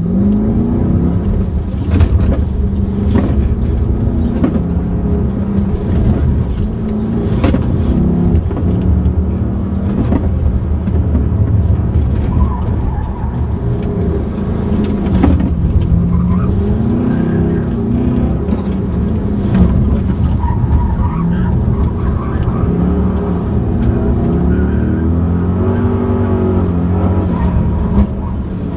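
The 2005 Pontiac GTO's 6.0-litre LS2 V8 revving up and falling back again and again as the car is driven hard through an autocross course, heard from inside the cabin. A few sharp knocks come through along the way.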